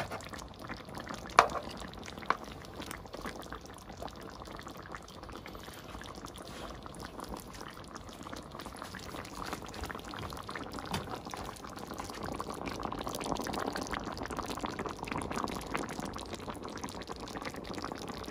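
Creamy sauce simmering and bubbling in a frying pan as red snapper fillets steam in it. Two sharp knocks come early, about a second apart, and the bubbling grows a little louder in the second half.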